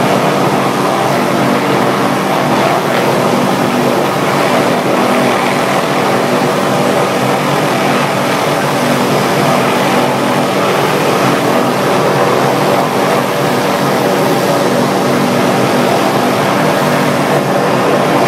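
Small helicopter hovering in place, its rotor and engine making a loud, steady drone at an unchanging pitch.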